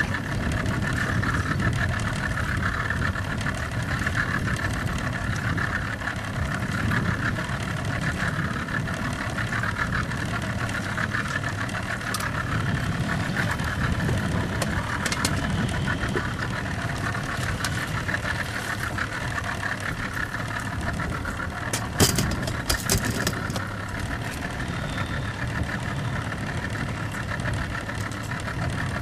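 Outboard motor running steadily at trolling speed, with water and wind noise underneath. A quick cluster of sharp clicks comes about two-thirds of the way through.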